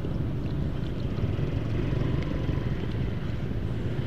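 Honda Vario 125 scooter engine running steadily at low speed in slow traffic, a low rumble picked up from inside the rider's full-face helmet, with surrounding traffic behind it.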